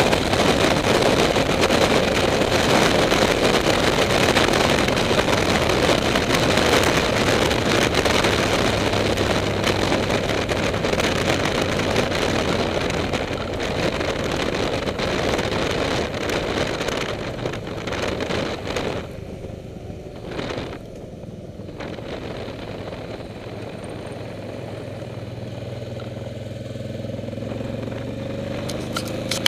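Motorcycle ridden at road speed, its engine under loud rushing wind noise. About two-thirds of the way through the wind drops away as the bike slows, and near the end the engine speeds up again with a rising pitch.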